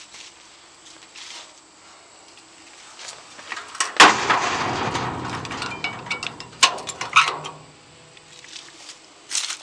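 Metal engine-compartment cover of a boom lift being swung shut: a loud bang about four seconds in, then a few seconds of rattling and scraping with two more knocks.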